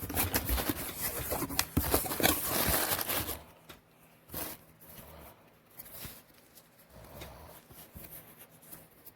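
Crinkling and tearing of product packaging as it is opened by hand, busy and loud for about the first three seconds, then quieter rustles and clicks of handling.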